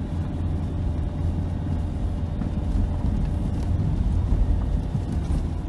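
Subaru car driving on a snow-covered, unploughed track, heard from inside the cabin: a steady low rumble of engine and tyres working through the snow.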